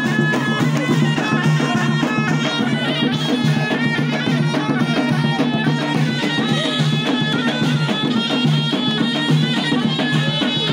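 Live traditional folk music: a shrill reed wind instrument plays a melody over steady frame-drum beats.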